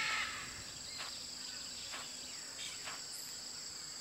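Tropical forest ambience: a steady, high-pitched drone of insects, with a harsh squawk right at the start and a few short bird calls about a second apart.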